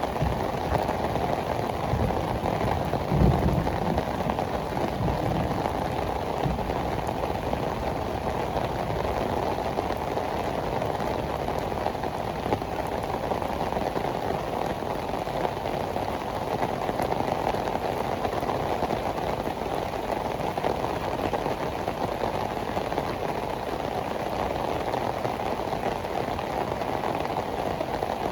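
Heavy tropical rain pouring steadily onto pavement, an even hiss of raindrops without letup. A brief low thump about three seconds in.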